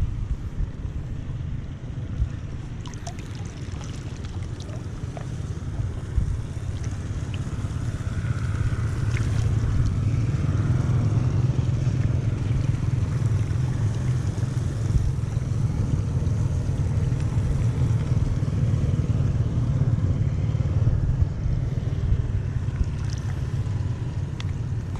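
Floodwater rushing steadily into a culvert drain, a low, even rushing sound that grows a little louder about nine seconds in.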